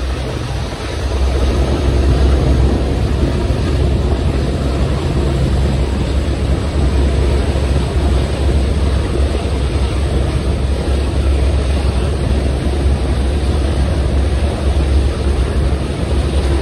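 Train running at speed behind the Class 42 Warship diesel-hydraulic D821 Greyhound, heard from an open carriage window: a steady, loud rumble of wheels on rail mixed with wind rush. A low hum drops away about six seconds in.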